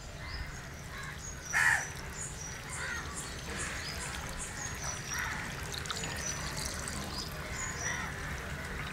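Water poured from a plastic jug trickling onto lumps of dry red soil in a plastic box, soaking it to make mud for clay. Birds call in the background throughout, with one louder call about a second and a half in.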